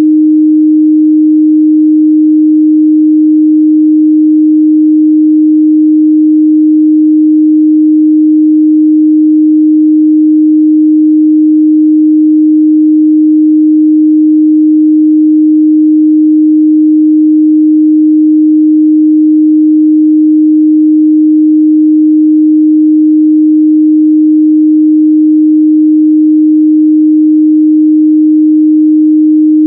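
A steady, loud 308 Hz sine-wave test tone, one pure pitch held without change, used to check speaker and headphone response in the midrange.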